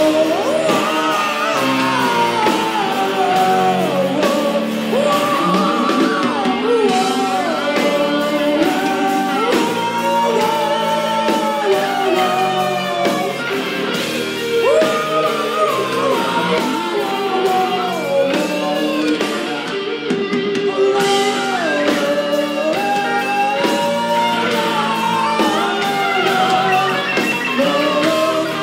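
Live heavy metal band playing: a male singer's melodic vocal over electric guitar, bass and drums.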